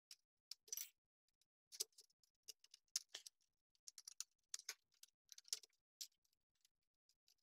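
Small hand screwdriver working the screws out of a plastic model car's screw-on chassis: a string of faint, irregular clicks and ticks of the driver tip and screws against the plastic.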